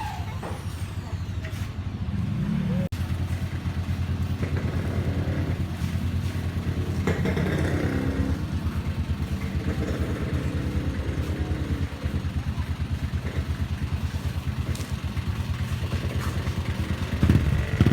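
A motor vehicle's engine running steadily, with an even, rapid pulsing.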